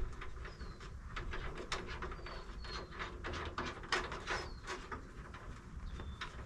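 Scattered light clicks and taps of hands working at a plastic vehicle grille while its screws are run in by hand, with a small bird chirping briefly several times over a low steady rumble.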